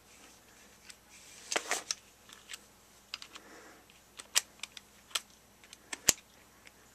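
Scattered light clicks and rattles of a hex-shank screwdriver bit being pushed into and handled in a cordless screwdriver's 1/4-inch quick-change chuck, the sharpest click near the end.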